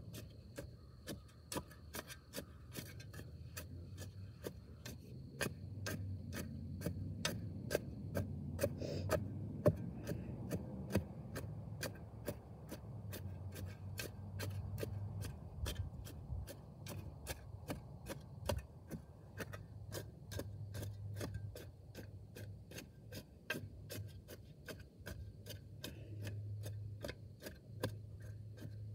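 Steel-bladed shovel digging into hard clay soil, scraping and crunching as the blade cuts and lifts clods. Over it runs a steady, even ticking of about two to three clicks a second.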